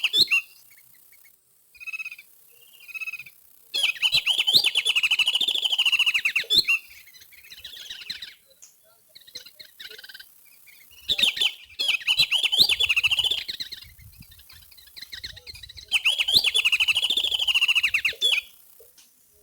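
Small songbird's chattering song: long, fast, high trills about three seconds each, repeated three times several seconds apart, with two short notes before the first.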